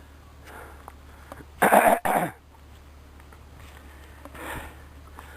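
A person coughing twice in quick succession, close to the microphone, over a faint steady low hum.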